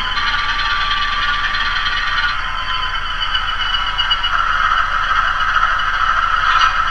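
Diesel prime-mover sound from the MRC sound decoder of an HO-scale Walthers Proto 2000 PA/PB model locomotive, played through its small onboard speaker, running steadily. It grows a little louder and fuller about four seconds in.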